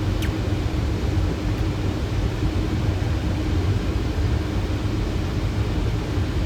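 Steady flight-deck noise of a Boeing 737 on final approach with gear down and flaps 30: a rushing of airflow over the airframe with a low rumble and a faint steady hum underneath.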